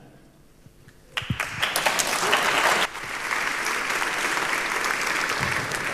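Audience applauding, starting about a second in, loudest for the first couple of seconds and then steady.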